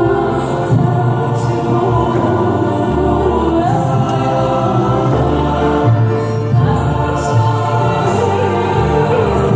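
A choir singing with an orchestra: held chords over bass notes that move step by step.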